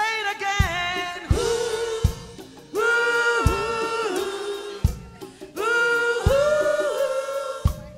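Live gospel song: a female lead singer sings phrases backed by other singers and a band, with low drum or bass beats under the voices.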